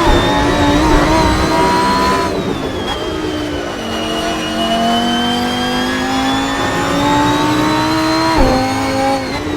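Lamborghini Huracán Performante's naturally aspirated 5.2-litre V10 being driven hard. There is a quick upshift right at the start and revs climb for about two seconds. Then the throttle lifts and the revs fall away, followed by a long steady climb in revs that ends in another sharp upshift near the end, after which the revs drop again.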